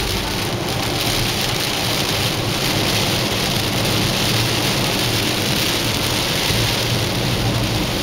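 Heavy rain falling on a moving car's windshield and roof, heard from inside the cabin, with the steady hiss of tyres on the wet road and a low road rumble beneath.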